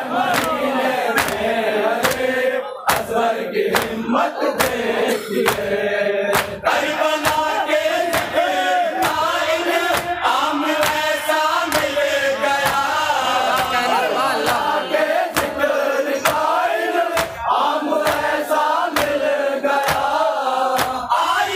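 Men chanting a Shia salam (lament) together in unison. A steady beat of sharp strikes runs under the chant about three times every two seconds, typical of hands beating the chest in matam.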